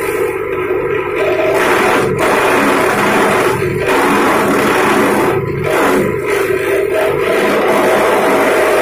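Grass chopper machine running steadily with a constant motor hum. Louder stretches of rough shredding noise come and go, typical of grass being fed through the blades.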